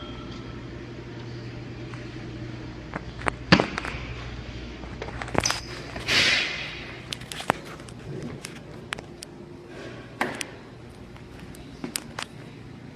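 Restaurant background: a steady low hum with scattered knocks and clicks, and a brief hiss about six seconds in.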